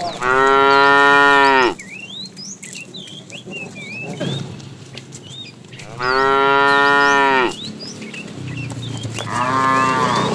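Cow mooing three times: two long, level calls a few seconds apart, each about a second and a half, dropping slightly in pitch as they end, and a third call starting near the end.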